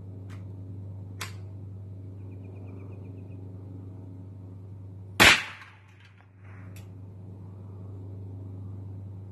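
A .22 rimfire rifle shot: one loud, sharp crack about five seconds in, with a few fainter sharp cracks before and after it.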